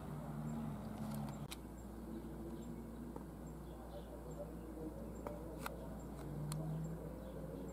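Quiet room ambience: a steady low hum with faint on-and-off low tones, and a few sharp clicks.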